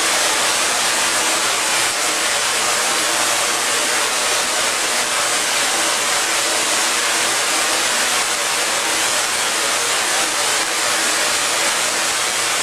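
Tesla coil firing purple spark discharges into the air: a steady, loud hissing buzz with a faint low hum beneath.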